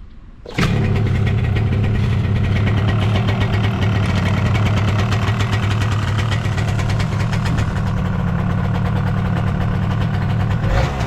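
1987 Yamaha SDR200's two-stroke single-cylinder engine catching suddenly about half a second in and then idling steadily, with no abnormal noise.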